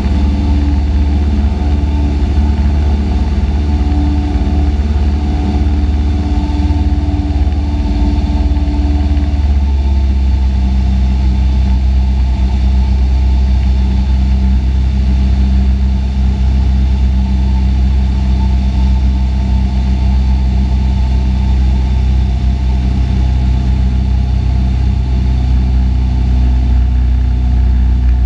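Cessna 172's piston engine and propeller droning steadily in flight, heard inside the cockpit. About ten seconds in, the pitch of the drone steps down slightly and then holds steady.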